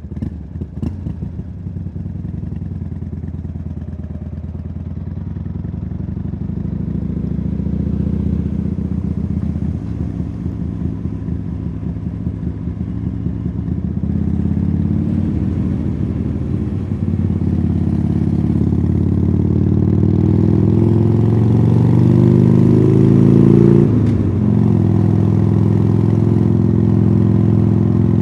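Harley-Davidson Sportster Iron 883's air-cooled V-twin through Khrome Werks Tapered 3 exhausts, starting with an uneven low pulse and then pulling harder, getting louder and rising in pitch. Its pitch drops briefly about 24 seconds in, like a gear change, before it runs on steadily.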